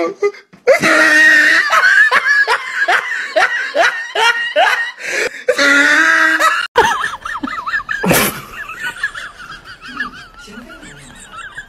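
A person laughing hard in quick repeated bursts, each falling in pitch, for most of the first seven seconds; it cuts off suddenly. After that a quieter, wavering voice-like sound continues, with one sharp click about eight seconds in.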